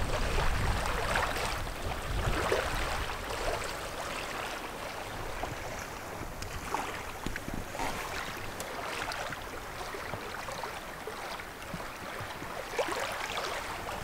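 Water splashing and lapping around a canoe as it is paddled, with wind rumbling on the microphone for the first couple of seconds.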